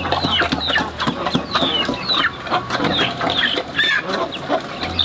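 A flock of chickens clucking and calling, with many short, high calls falling in pitch, one after another.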